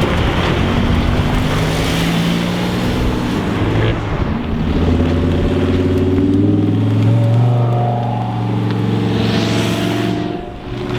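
Sports cars' engines running, a deep exhaust note holding mostly steady under a rushing hiss.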